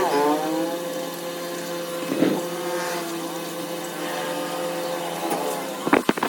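A motor running, with a steady hum and a pitch that slides down about a second in, then rises and falls again later.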